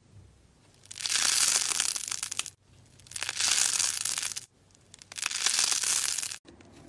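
Slime being squeezed and pressed by hand, crackling in three bursts of about a second and a half each.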